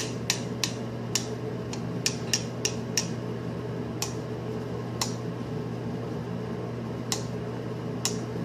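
Fishing pliers worked open and shut, their greased joint giving a sharp metal click at each stroke: clicks about three a second at first, slowing to single clicks a second or so apart. A steady low hum runs underneath.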